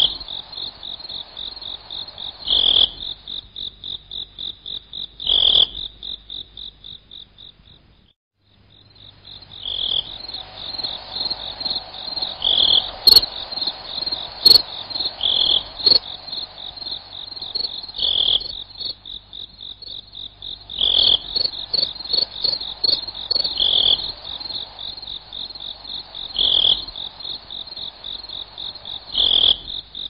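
Crickets chirping in a rapid, even high-pitched trill, with a louder call about every three seconds. The sound drops away briefly about a quarter of the way in, then resumes.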